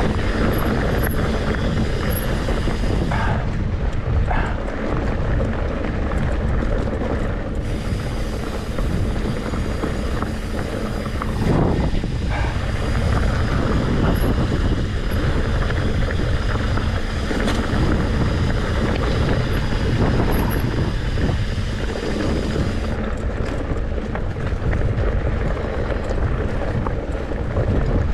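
Mountain bike riding a dirt single-track trail: a steady rumble of wind on the microphone and tyres on the ground, with scattered knocks from the bike over the terrain.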